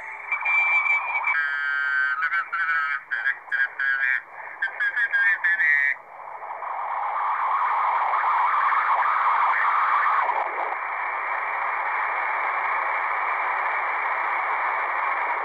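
Shortwave receiver audio from a smartphone SDR app tuned in the 40-metre amateur band: for about six seconds a chopped, warbling single-sideband signal, then steady static hiss with a faint wavering signal in it.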